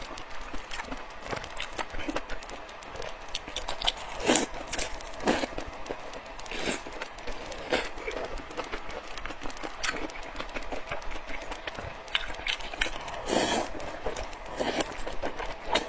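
Close-miked eating sounds: thick noodles in spicy broth being slurped and chewed, with frequent wet mouth clicks and smacks, and a longer slurp about thirteen seconds in.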